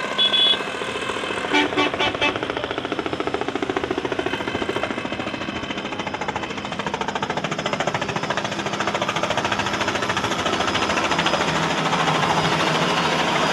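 Light two-bladed helicopter flying low overhead, its rotor chopping in a fast, even beat that grows louder as it comes closer. A few short horn toots from traffic in the first two seconds.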